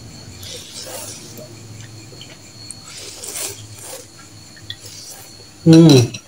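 A person slurping noodles from a bowl of meatball soup in several short sucking pulls, with light clinks of fork and spoon against the bowl. Near the end comes a short loud voiced sound that falls in pitch.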